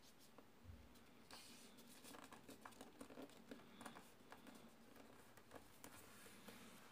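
Very faint rustling and small ticks of a sheet of paper being folded and creased flat by hand.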